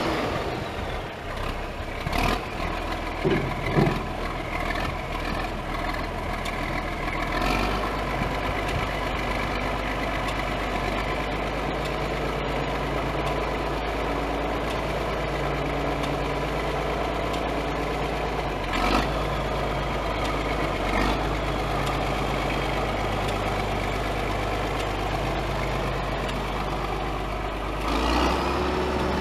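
John Deere 4430's six-cylinder turbo diesel engine running steadily, its note shifting a few times.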